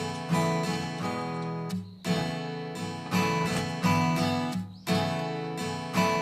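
Background music: an acoustic guitar strumming chords, a fresh strum about once a second.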